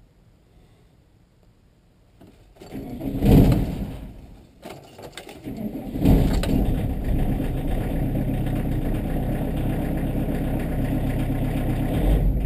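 VW T3 Vanagon's 1.7-litre diesel engine on a cold start: it is cranked about two seconds in, fires and falters, then catches about six seconds in and settles into a steady idle.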